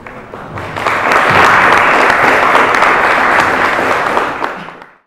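Audience applauding. The clapping swells within the first second, holds steady, then fades and cuts off near the end.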